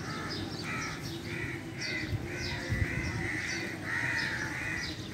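A flock of crows cawing over and over, the calls overlapping several times a second. There is a brief low bump about halfway through.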